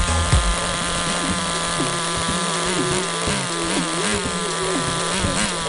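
The SH .18 (3.0 cc) nitro engine of an HSP Monster 1/10 RC truck idling steadily with a buzzing note.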